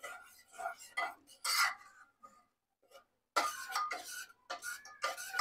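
Metal spoon stirring thick dal in a pressure cooker, scraping and clinking against the pot in short strokes, with a pause of about a second midway.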